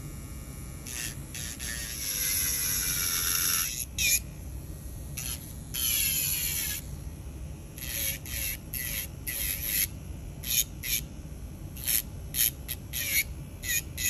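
Electric nail drill with a sanding cap grinding the edge of a clear acrylic nail tip: high-pitched scraping whine with a falling pitch for about two seconds, then many short bursts as the bit is touched to the tip again and again.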